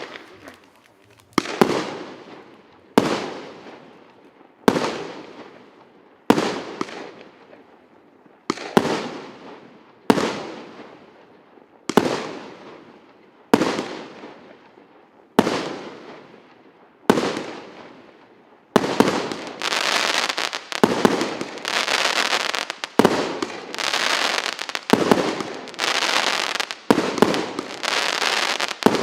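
Fireworks going off: about eleven single bursts roughly a second and a half apart, each trailing off in a long fading crackle. About two-thirds of the way through, this gives way to dense, continuous crackling broken by further bursts.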